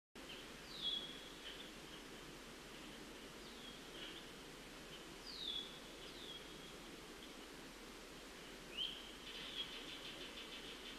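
Wild songbirds calling: several short whistled notes that slide down in pitch, then about nine seconds in a rising note that runs into a fast buzzy trill, over a faint steady background rumble.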